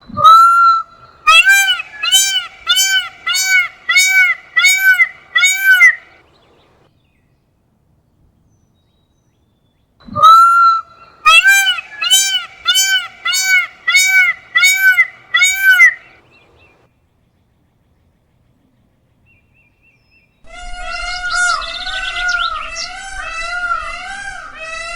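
Peacock calling: a long call, then a run of about seven short, loud calls repeated at a steady pace. The bout comes twice, with silence between. From about twenty seconds in, a denser stretch of overlapping calls follows.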